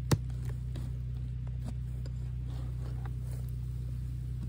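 A single sharp crack as a wooden hive box is pried loose and tipped back, followed by a few faint knocks, over a steady low hum.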